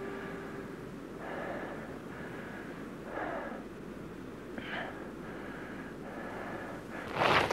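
A man breathing hard in short, separate breaths, one every one and a half to two seconds, from the strain of clinging to and climbing a rock face. Near the end comes a sudden loud, rasping, clattering burst.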